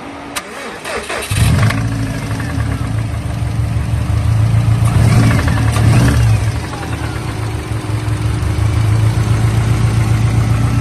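Subaru WRX engine starting about a second in and then running steadily, a little louder for a couple of seconds in the middle; its owner believes the motor is blown, and it has been knocking.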